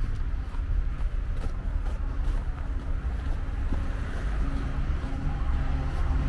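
Street traffic ambience: a low rumble of wind on the microphone and road noise. A steady engine drone comes in about two seconds in and grows stronger toward the end.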